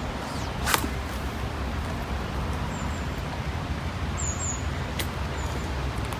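Steady low outdoor rumble by a pond, with a sharp click about a second in and another about five seconds in, and a few faint high bird chirps.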